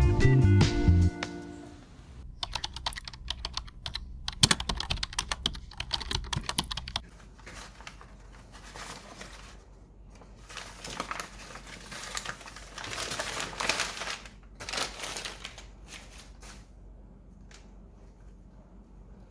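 Background music fades out in the first two seconds. It is followed by runs of quick light clicks and taps, then several bursts of rustling, from small items being handled during unboxing and decorating.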